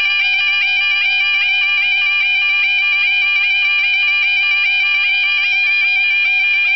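Level crossing warning alarms sounding continuously while the barriers are down: an electronic two-tone yodel alarm warbles over and over above a steady high tone, signalling that a train is approaching.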